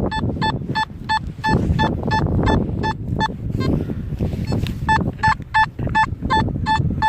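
Metal detector beeping in short, even pulses at one pitch, about three a second, with a pause of about a second midway. The beeping signals metal close by. A low rumble runs underneath.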